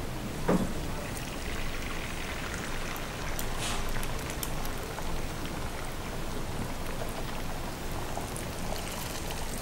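Beaten eggs frying in hot oil in a frying pan: a steady sizzling hiss with scattered small crackles.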